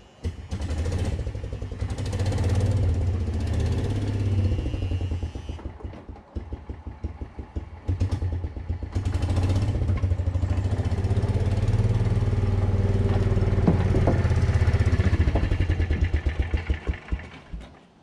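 Gas golf cart's small engine starting and running as the cart drives up onto the shed floor, surging and easing with the throttle, then cutting out shortly before the end.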